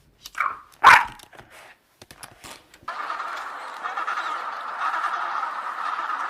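A dog barks twice in the first second, the second bark louder. From about three seconds in, a steady rushing noise takes over.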